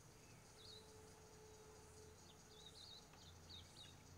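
Faint outdoor ambience: scattered short bird chirps and warbles over low steady background noise, with a faint hum in the first half.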